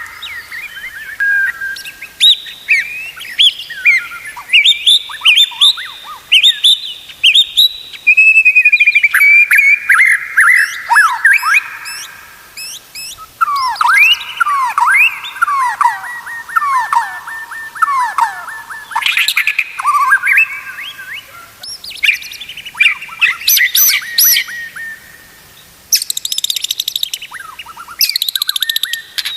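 White-rumped shama (murai batu) singing a long, varied song: clear whistled phrases, quick runs of notes and trills, with harsher, high-pitched phrases in the last third.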